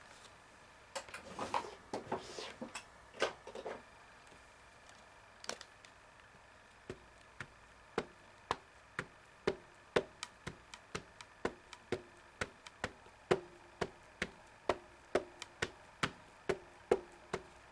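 A plastic-cased ink pad of Ranger Archival Ink in Jet Black, dabbed repeatedly onto a rubber stamp: a run of light, even taps about two or three a second, starting about seven seconds in. In the first few seconds come a few irregular knocks and rustles as the stamp and pad are handled.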